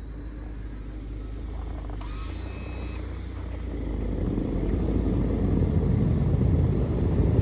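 A car running and drawing nearer, its low rumble growing steadily louder through the second half.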